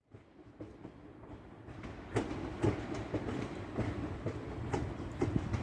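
Train rumbling along with its wheels clacking over the rail joints, roughly two clacks a second, getting louder from about two seconds in.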